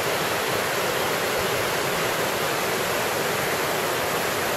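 Mountain creek cascading over rocks beneath a wooden footbridge, a steady, unbroken rush of white water. The creek is running high with snowmelt.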